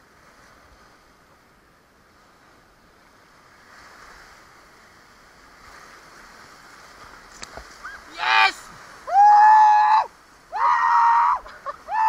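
Surf washing and foaming over shore rocks as a low, steady hiss. In the last few seconds it is overtaken by three or four loud, drawn-out high-pitched calls.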